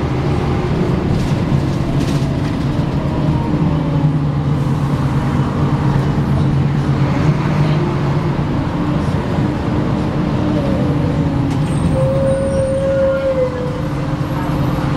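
DAF SB220 bus running, its engine and driveline steady underneath thin whining tones that glide up and down: the strange howling noise. A strong howl stands out about twelve seconds in and holds for over a second.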